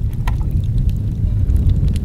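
Wind buffeting the microphone in a steady low rumble, with a scatter of faint crackles from the wood fire under the grill.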